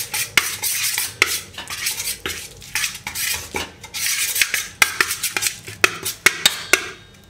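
Metal spoon scraping and clicking around a stainless steel bowl, stirring a wet mint paste with spice powders; the stirring stops near the end.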